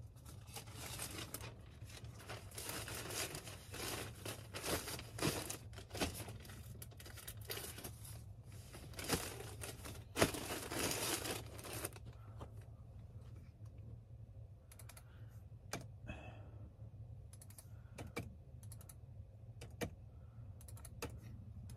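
Typing on a computer keyboard: a dense run of keystrokes and clicks for about the first half, then sparser single key presses, over a steady low hum.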